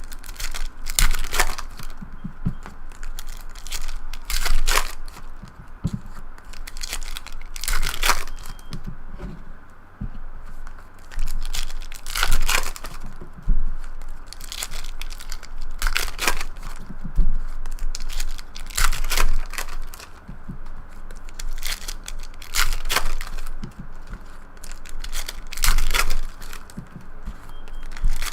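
Foil trading-card pack wrappers being torn open and crumpled, one after another, with a crinkling rip about every three to four seconds.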